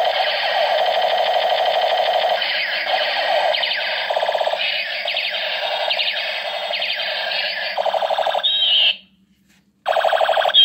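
Battery-operated light-up toy guns playing their electronic sound effects: a warbling, siren-like tone broken by stretches of rapid pulsing. It cuts out for under a second near the end, then starts again.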